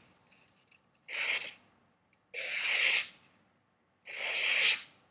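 A cKc Hunter knife's L6 steel blade slicing through a sheet of paper three times, each cut a short hiss with a quiet gap between. These are the clean slices of an edge stropped to hair-popping sharpness.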